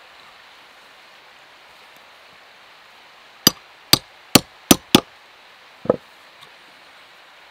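Five sharp hammer blows in quick succession on a metal hand punch held upright on a leather belt over a wooden post, followed about a second later by one duller knock.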